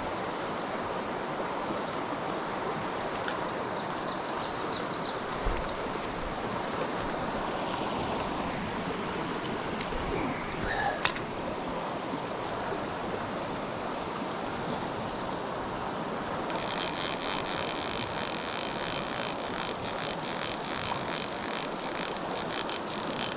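River water rushing steadily. About two-thirds of the way through, a fly reel's click-and-pawl starts clicking rapidly and keeps going as line runs on the reel while a fish is being played.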